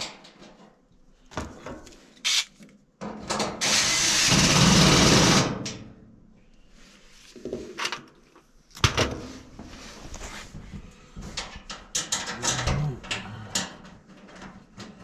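A power drill runs for about two seconds, a few seconds in, amid scattered clicks and knocks of dryer panel parts and screws being handled.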